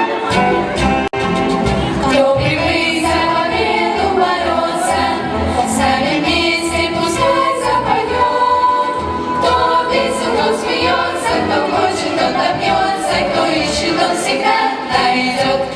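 Choir singing with instrumental accompaniment, with a brief dropout in the sound about a second in.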